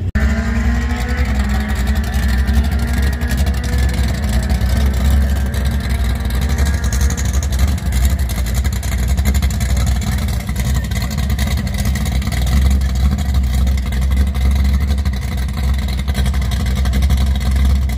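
Drag-race car's engine idling loudly, a steady deep rumble.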